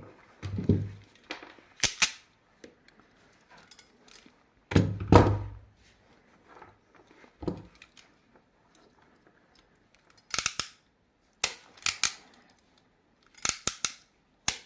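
Hand cutting tool snipping through the lined-up wires of an ethernet cable to trim them even: several sharp, brief snips, most of them in a cluster near the end. Between them come a few duller knocks from handling the cable and tool.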